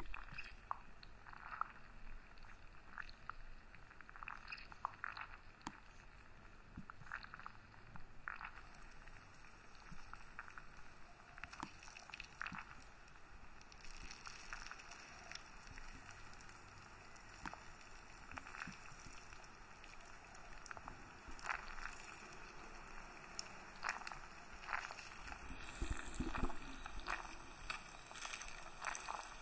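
Halved pink grapefruit squeezed and crushed by hand, the pulp squishing wetly with many small irregular crackles and pops.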